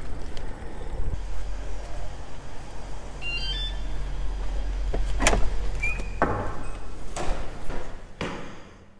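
Steady low rumble of riding an electric bicycle, then several sharp clicks and knocks as a building's wooden door is opened and closed.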